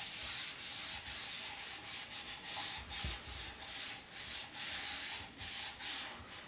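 Paper towel wiping mineral oil into the face of an end grain wooden cutting board: a quick run of back-and-forth rubbing strokes, each a short soft hiss, about two a second.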